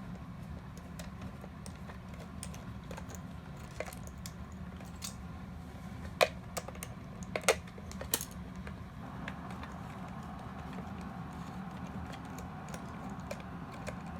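Scattered clicks and taps of a screwdriver and hard plastic parts being handled as the plastic bottom plate of a toy robot is unscrewed. The loudest few clicks come about six to eight seconds in, over a steady low hum.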